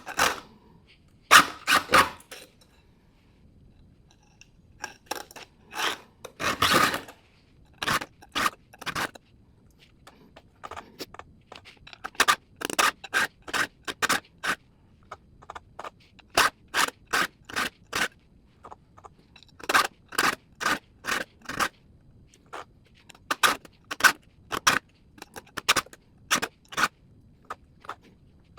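A chainsaw file rasping across the cutter teeth of a small electric chainsaw's chain, sharpening the dull teeth by hand. Short scraping strokes come in runs of several at about two a second, with brief pauses between runs.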